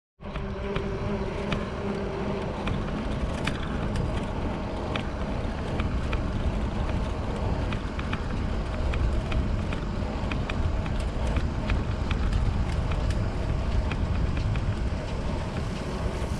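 Wind rushing over a bike-mounted camera's microphone and tyres hissing on wet asphalt as a touring bicycle rolls along, with scattered small ticks. The noise cuts in just after the start.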